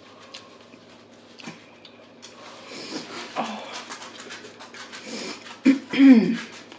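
Close-miked eating sounds of crunchy chicken rolled tacos: chewing, crunching and mouth clicks, busiest in the middle. Near the end comes a brief, loud pitched sound that rises and falls.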